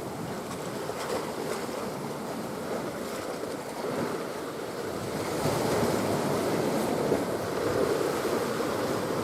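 Sea waves washing against the shore, a steady surge that swells louder about halfway through.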